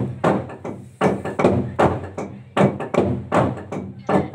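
Several players hammering a wooden log drum with heavy wooden beaters in a fast, uneven stream of strokes, about three to four a second, each hit ringing on briefly.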